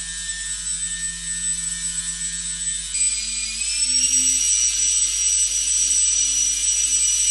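Electric ducted fan motors at the rotor-blade tips of a balsa tip-jet helicopter, whining steadily as they drive the rotor in a spin-up test. About three seconds in the whine jumps, rises in pitch and then holds steady at a higher note.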